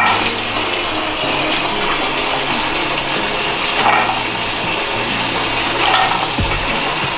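Water sloshing and splashing in basins as hands stir and wash freshly caught river prawns, with soft swells every couple of seconds.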